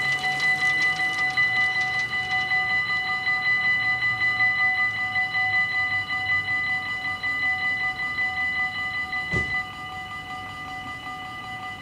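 Level-crossing warning bells ringing in a rapid, even rhythm while the barriers come down. About nine and a half seconds in there is a short knock and the ringing drops to a fainter level.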